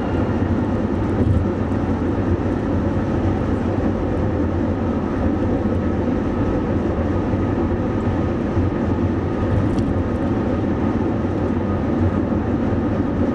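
Steady, loud, low rumbling noise with no clear rhythm or distinct events.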